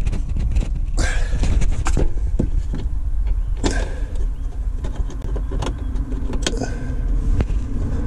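Scattered clicks and knocks of a hand feeling around inside the plastic cassette bay of a Thetford C2 caravan toilet, pushing at the float-level switch, over a steady low rumble.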